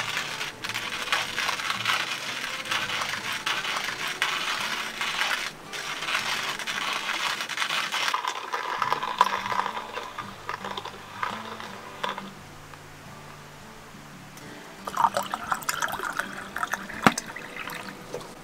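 Manual coffee grinder with a wooden body and steel crank grinding coffee beans: steady grinding for about twelve seconds, which then stops. Near the end come a few sharp clinks and a brief pour.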